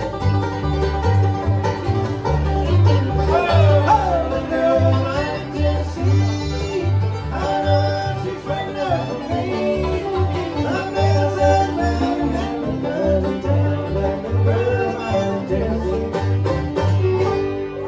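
Bluegrass band playing live: banjo, mandolin, acoustic guitar and upright bass, with the bass keeping a steady beat under the picked melody.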